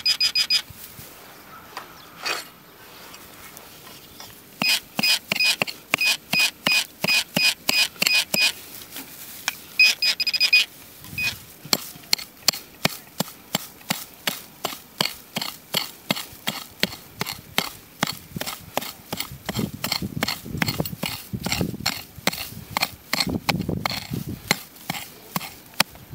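Metal detector sounding a rapid pulsed beep, about four a second, for several seconds and again briefly about ten seconds in, as the coil is swept over the ground. After that a steady fast clicking at a similar rate goes on.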